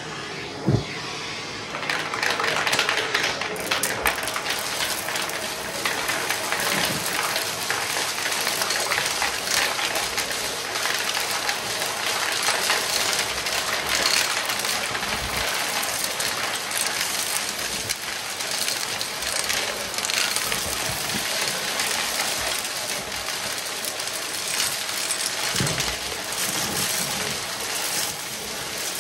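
Vacuum cleaner running with a dense, constant rattle of small clicks, which gets louder about two seconds in.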